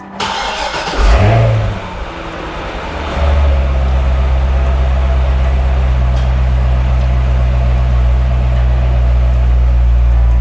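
Corvette ZR1's supercharged V8 starting: a brief crank, a flare of revs about a second in, then it settles into a steady idle.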